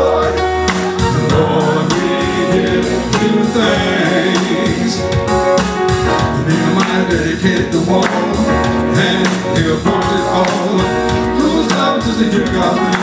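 Gospel praise-and-worship music with a steady beat and singing.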